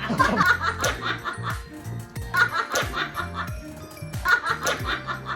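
People laughing in three bursts of quick repeated "ha-ha" pulses over background music.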